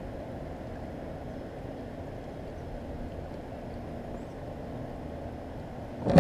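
Steady low rushing noise of a pedal-driven fishing kayak moving through the water.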